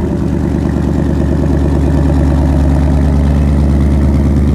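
Ford Mustang GT's 5.0 L Coyote V8 idling steadily through its active exhaust, settled just after start-up, with the exhaust valves in normal mode. A deep, even burble.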